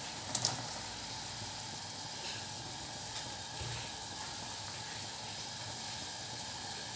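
Water at a rolling boil in a stainless steel pot, a steady bubbling hiss, with a short splash about half a second in as carrot sticks drop into it.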